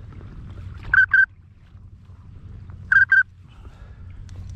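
A waterfowl whistle call, the kind blown for pintail and wigeon, sounded in two pairs of short, high, steady notes about two seconds apart. A low background rumble runs underneath.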